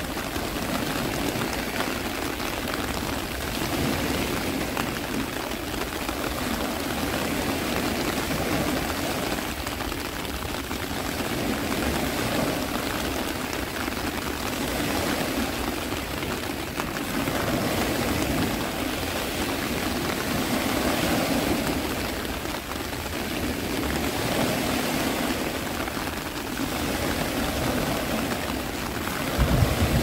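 Steady rushing noise of sea surf mixed with rain, swelling and easing gently every few seconds.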